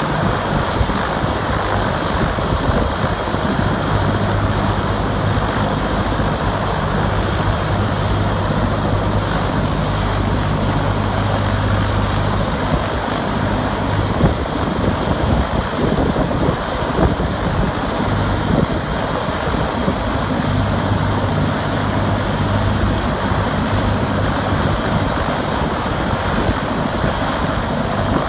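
Eurocopter AS350 B2 A-Star helicopter running on the ground, its single turboshaft engine and turning main rotor making a steady, continuous noise.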